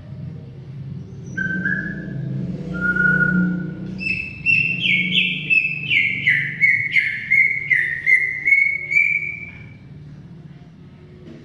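Cucak ijo (green leafbird) singing: a few clear whistled notes, then a run of about a dozen loud slurred whistles, roughly two a second, each sliding down in pitch. A steady low rumble runs underneath.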